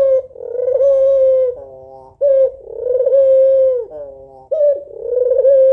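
A white female ringneck dove (puter putih) cooing, three loud coos about two seconds apart, each a short sharp note followed by a long held note that drops at the end. It is the female's call for a male.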